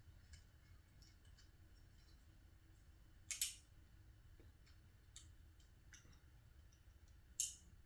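Small clicks and light scrapes of a hand screwdriver and small metal parts being worked on a model helicopter frame, with two brief, sharper scraping clicks, about three seconds in and near the end.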